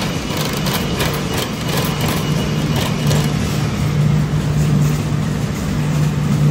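Steady low hum and road noise of a car driving, heard from inside the cabin.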